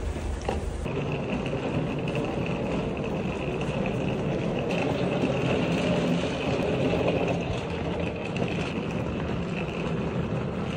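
A vehicle running steadily: a dense rumble with a steady high whine over it, beginning after a cut about a second in.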